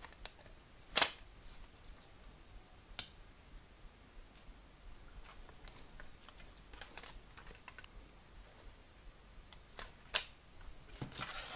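Quiet handling of paper and a roll of adhesive dots: dots pulled off their backing and paper butterflies pressed onto a card, with a few sharp clicks, the loudest about a second in and a pair near the end, and a short rustle at the very end.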